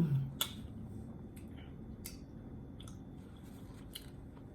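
Quiet chewing of pineapple with scattered wet mouth clicks, opening with a brief falling "mm" hum.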